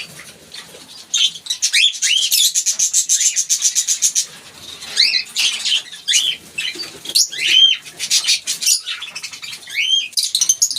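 Fischer's lovebirds chattering: shrill chirps that rise and fall, mixed with fast, rapid chatter, coming in bursts with short pauses between them.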